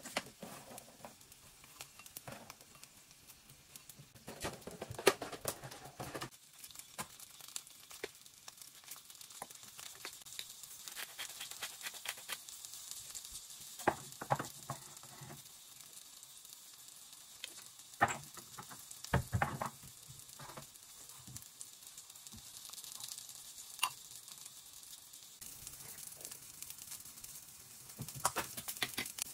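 Salad being made by hand at a kitchen counter: arugula going into a ceramic bowl, with scattered clicks, rustles and knocks of handling containers and utensils. A steady high hiss runs underneath.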